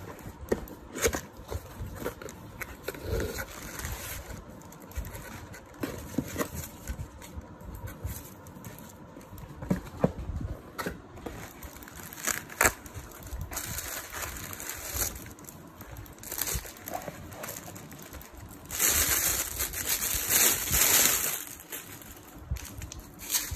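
Unpacking binoculars by hand: cardboard box, soft carry case and wrappings rustling, with scattered light knocks and clicks. A louder, longer rustle comes about nineteen seconds in and lasts about two seconds.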